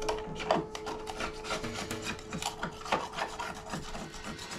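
A rag scrubbing the inside floor of a Kawasaki jet ski hull in quick, irregular rubbing strokes.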